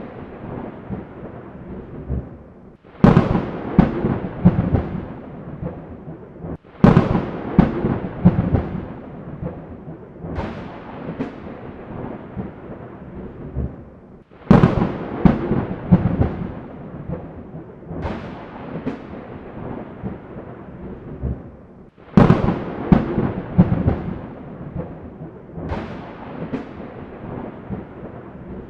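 Thunderstorm: repeated thunder claps, each starting with a sharp crack that rolls off into a rumble, about every four to eight seconds. Between the claps there is a steady hiss of rain.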